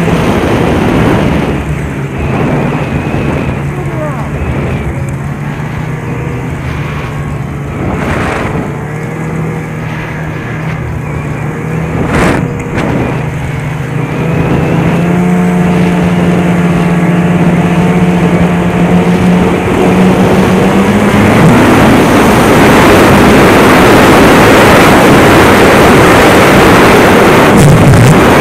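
Snowmobile engine running steadily while riding along a snowy trail. About three-quarters of the way through it speeds up, the engine pitch rising a little and the rushing noise of the ride getting louder.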